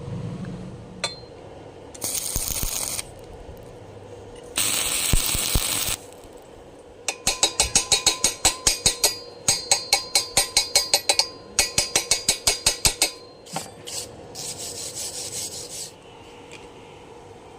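Rapid back-and-forth rasping strokes, about five a second for several seconds, set between short bursts of steady hissing.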